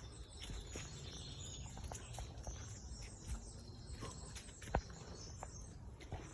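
Outdoor countryside ambience: a steady low rumble with faint high bird chirps and scattered light clicks, one sharper click nearly five seconds in.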